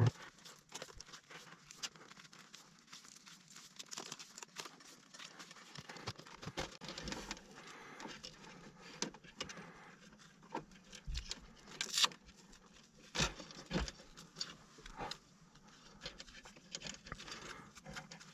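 Light rustling and scattered small clicks and taps as cables and wire are handled by hand in a utility box, with a few sharper knocks in the second half.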